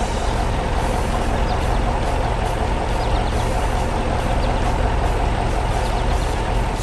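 Heavy truck engine running steadily, a loud low rumble with light regular ticking above it.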